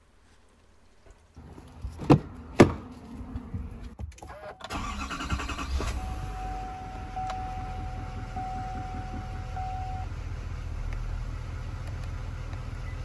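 Two loud thumps about two seconds in, then a Duramax 6.6 L turbodiesel V8 cranks and catches and settles into a steady low idle on its first start after an oil change. A steady electronic tone sounds for about four seconds over the idle.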